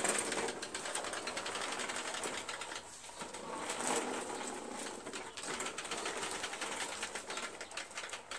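Honda HRZ216 walk-behind mower rolled back and forth by hand with the engine off: a fast, continuous run of clicking and rattling from its rear wheels and drive as they turn on the asphalt.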